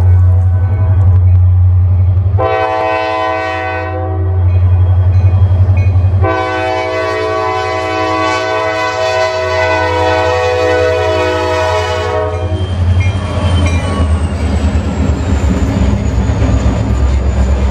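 Diesel freight locomotive horn sounding for a grade crossing: a blast about two and a half seconds in, then a long blast from about six to twelve seconds, over a steady low engine rumble. The locomotives then pass close by with their diesel engines working and the wheels clattering over the rails, while a thin high whine slowly falls in pitch near the end.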